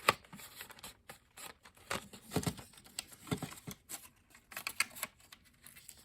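A cardboard box of wooden pencils being handled: irregular light clicks, taps and rattles, with a couple of duller knocks around the middle.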